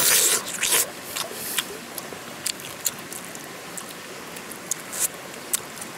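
Close-up mouth sounds of eating a small morsel held in the fingers: a quick run of crunching clicks and smacks in the first second, then scattered single clicks.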